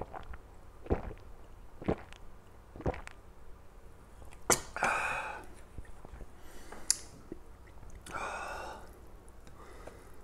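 A man gulping carbonated water from a glass mug, with four swallows about a second apart. Then come two sharp breathy gasps, a refreshed exhale after the fizzy drink, with a sharp click or two between them.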